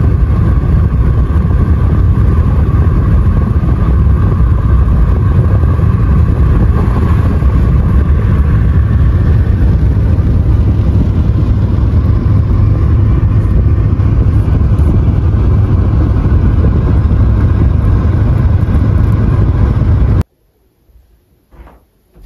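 A car driving: a steady, loud rumble of road and engine noise, heavy in the low end, which cuts off abruptly near the end.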